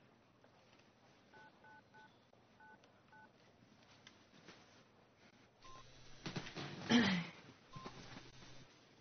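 Mobile phone keypad tones: five short two-tone beeps as a number is dialled, over quiet room tone. About seven seconds in comes a louder, brief noisy sound.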